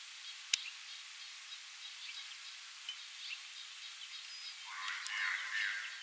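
Open-air background hiss with a sharp click about half a second in and a few faint bird chirps; a distant voice comes in near the end.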